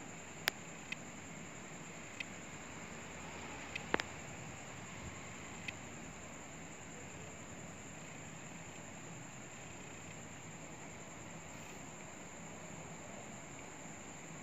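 Quiet background: a steady hiss with a thin, high, steady tone, and a few sharp clicks in the first six seconds, the loudest about four seconds in.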